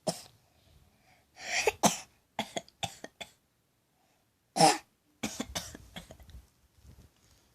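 A young child's deliberate fake coughing: a series of short, throaty coughs, the loudest one about four and a half seconds in.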